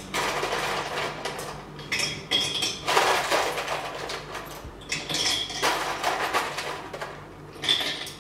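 Ice cubes clinking and rattling into a glass mason jar, in several separate handfuls.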